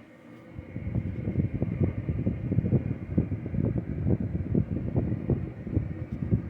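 52-inch Hunter low-profile ceiling fan running, its airflow buffeting the microphone in irregular low gusts that start about half a second in.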